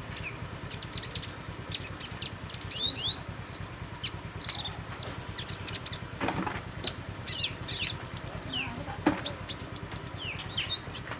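Small songbird twittering: a fast run of short, high-pitched chirps that sweep up and down in pitch, coming in quick clusters.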